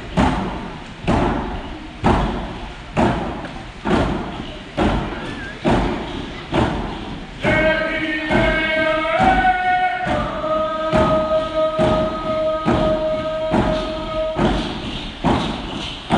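Drum beaten steadily about once a second, with a group of voices singing long held notes over it from about halfway in to near the end.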